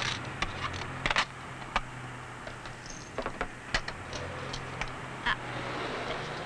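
Tablets clicking and clattering as they are slid across a plastic pharmacy counting tray: irregular sharp clicks and taps, the loudest cluster about a second in. A low steady hum sits underneath.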